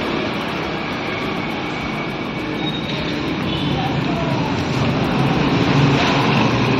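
Steady street noise of road traffic, an even rumble.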